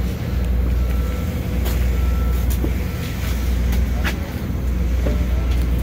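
An engine idling steadily nearby, a low, even drone, with a few light clicks over it.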